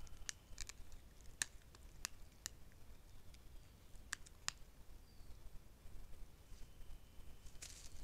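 A handful of faint, sharp crackles of dry leaf litter and twigs under a red fox's paws as it steps and sniffs close by, bunched in the first half and then falling away.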